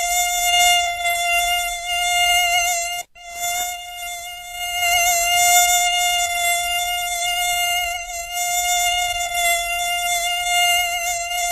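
Mosquito whine: a steady, high buzz rich in overtones that wavers slightly in pitch, cutting out for an instant about three seconds in.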